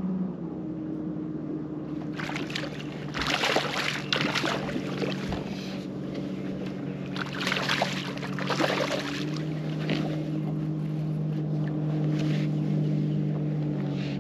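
Bow-mounted electric trolling motor humming steadily in a few low tones that shift pitch slightly near the start and again about nine seconds in. Two stretches of louder rushing noise come about two seconds in and about seven seconds in.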